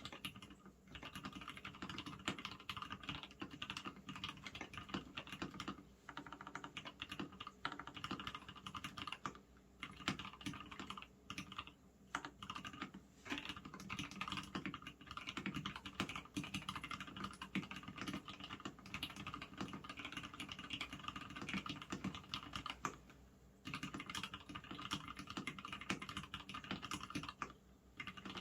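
Fast continuous typing on a custom 65% mechanical keyboard with Gateron red linear switches fitted with 62 g springs and switch films, a stainless steel plate and a polycarbonate case, with a few brief pauses.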